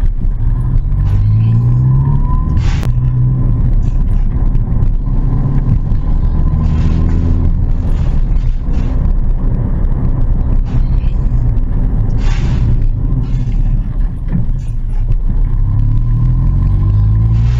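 Ford Fiesta engine pulling through its gears. Its pitch climbs and then drops back as the automatic transmission shifts, with a faint rising whine. There is a sharp click about three seconds in.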